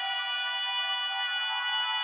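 Ambient meditation music: a steady held chord of many high tones, with no bass.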